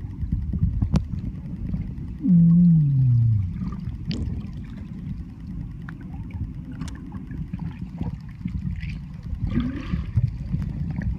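Muffled underwater sound from an iPhone held below the surface: a low rumble of moving water with scattered clicks and taps. About two seconds in, a loud tone slides down in pitch for about a second.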